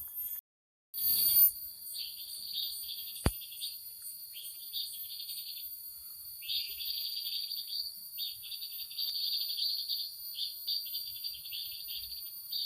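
Crickets chirping in repeated trilled bursts over a steady high insect hiss. A brief loud rustle comes about a second in, and a single sharp click follows a couple of seconds later.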